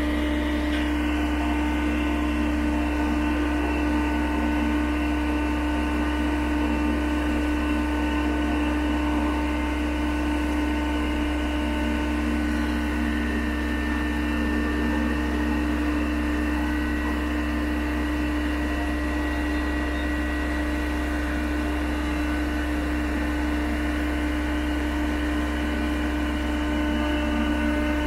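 Truck-mounted boom pump running, a steady, unbroken mechanical drone with a constant hum.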